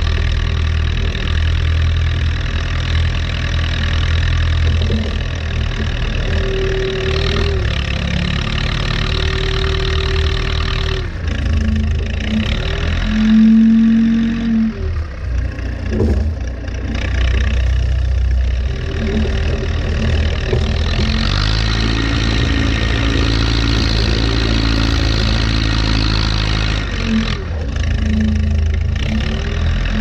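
1979 Allis-Chalmers 715B backhoe loader's diesel engine running under load while the front bucket pushes and lifts snow. Short whines come and go, and the engine speed rises for several seconds in the second half.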